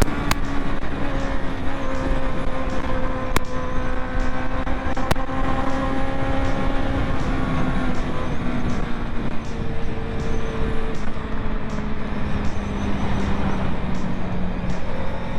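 Honda CB650R's inline-four engine running at cruising revs on the moving motorcycle, its pitch easing slowly down across the stretch, over a steady rush of wind and road noise.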